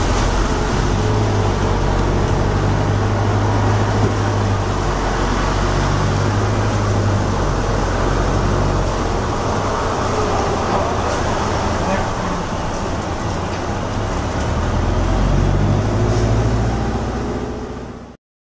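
Interior ride noise of a hybrid double-decker bus in motion: a low drivetrain hum whose pitch shifts as the bus speeds up and slows, over tyre and road noise on a wet road. It fades out near the end.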